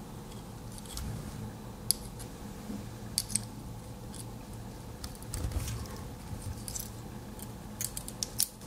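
Small metal clicks and taps from handling a Victorinox Classic SD Alox pocketknife and a small screwdriver tool: a few sharp, scattered clicks, two close together about three seconds in and more near the end, over a faint steady low hum.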